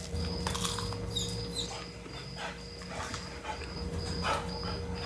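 A dog whining with short, high, falling calls, mixed with a few crisp crunches of a puffed rice cake being bitten and chewed.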